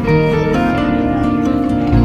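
Background music: a melody of held notes changing every fraction of a second over a steady lower tone, with a deep bass note coming in at the very end.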